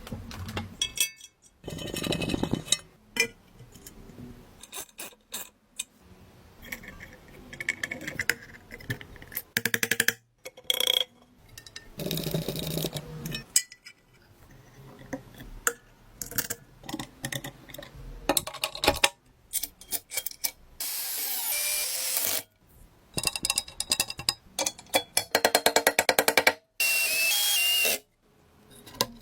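A run of short workshop clips: metal parts clinking and rubbing, with two brief bursts of a power tool running, about two-thirds of the way through and near the end.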